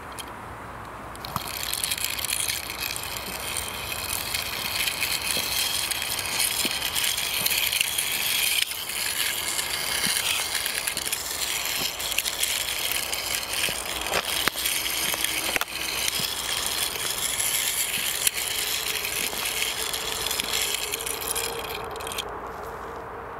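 A toy car's small wheels rolling and rattling over rough forest ground as it is pushed by hand. The scraping starts about a second in and stops shortly before the end.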